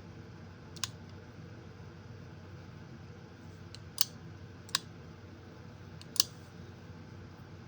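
Four sharp metallic clicks, irregularly spaced, from an antique pistol's action being worked by hand, over a low steady hum.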